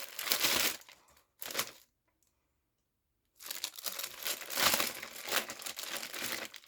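Product packaging being handled, crinkling and tearing: a short burst, a brief one, then a longer stretch of crackling after a pause of about a second and a half.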